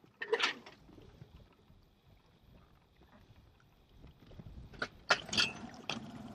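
Handling noises on a small Honda outboard motor on an inflatable dinghy: a short rasping stroke right at the start, then a few sharp metallic clicks and knocks about five seconds in, as the motor is readied to start.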